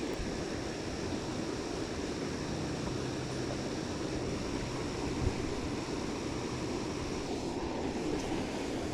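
Steady outdoor wind noise on the microphone. A faint low hum comes in after a couple of seconds and stops about five seconds in with a small click, and a faint high whine runs underneath.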